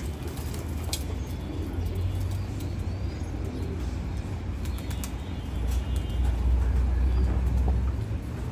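Flock of domestic pigeons at a water bath, cooing softly with a few wing flaps and sharp claps, over a steady low rumble that grows louder about six seconds in.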